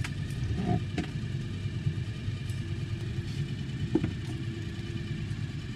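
Boat motor idling steadily, with a few light clicks and knocks.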